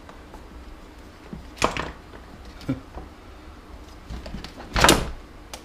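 Hard plastic parts of a jump starter's housing knocking and clattering as it is taken apart by hand. There are a couple of separate knocks, then a louder clatter about five seconds in.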